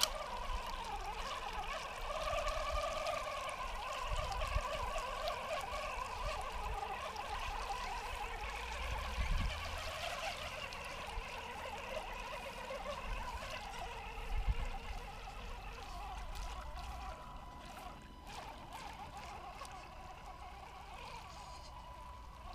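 WLtoys 124301 1/12-scale RC military truck driving through muddy puddles: water splashing and churning under its tyres, with the whine of its 370 electric motor and all-plastic gearbox wavering with the throttle.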